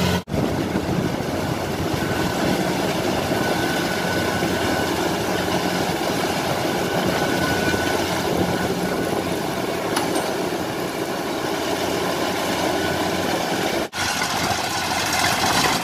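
Rice combine harvester's engine and machinery running steadily.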